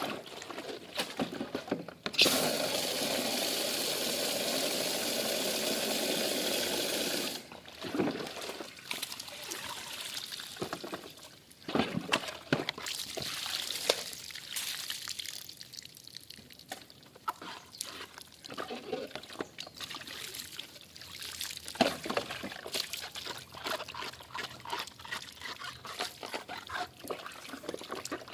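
Water poured over dry vacuum cleaner parts being rinsed by hand. A steady pour runs for about five seconds, starting a couple of seconds in, then comes a run of irregular splashes, drips and knocks as the parts are handled and rinsed.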